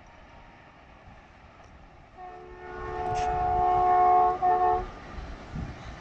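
Diesel locomotive horn sounding one long multi-note blast that swells louder as it goes, then a short second blast right after.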